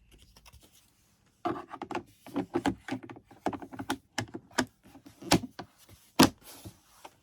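Access panel being put back on a portable inverter generator: a run of light clicks, knocks and rattles starting about a second and a half in, with two sharper knocks near the end as it is fitted into place.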